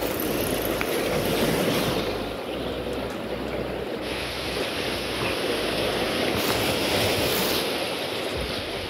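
Sea waves washing and breaking against concrete breakwater blocks, swelling twice, with wind buffeting the microphone.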